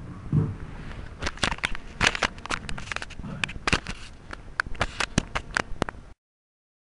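Scattered, irregular handclaps from a small audience after the poem ends, cut off abruptly about six seconds in.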